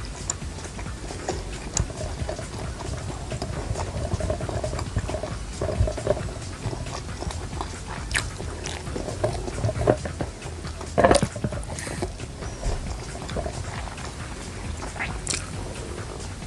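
Close-miked chewing and mouth sounds of a person eating grilled skewered street food, with scattered wet smacks and clicks; the loudest is about 11 seconds in.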